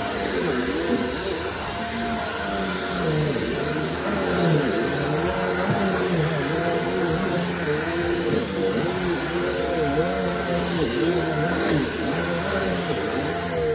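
Vacuum cleaner running steadily with a high motor whine. Its pitch rises and falls over and over as it is pushed back and forth.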